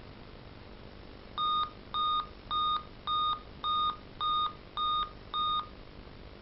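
Dell Inspiron N5010 laptop giving a run of eight short, evenly spaced beeps, about two a second, starting about a second and a half in. This is the POST beep code of a laptop that will not boot: it signals a hardware fault at start-up.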